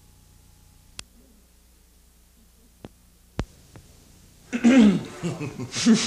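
Faint low hum broken by four sharp clicks, the loudest about three and a half seconds in, then people start talking near the end.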